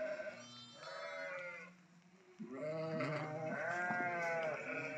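Several sheep bleating, their calls overlapping, with a short lull about two seconds in.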